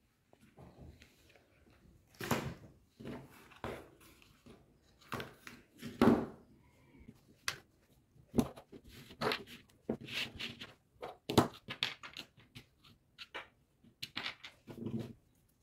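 Irregular handling noises from a silicone ice-pop mould in a plastic frame: plastic clicks, knocks and rubbing as the mould is opened and the frozen ice pops are pulled out and set down. The loudest knock comes about six seconds in.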